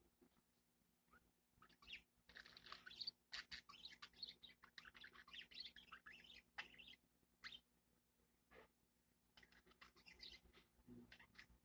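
A small pet bird softly chirping and chattering, mixed with faint clicks as it nibbles with its beak. The chatter is busiest in the first half, with a shorter burst near the end.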